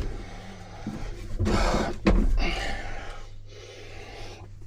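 A man breathing hard, with a few loud, gasping breaths about a second and a half in and again around two to three seconds, over a steady low hum.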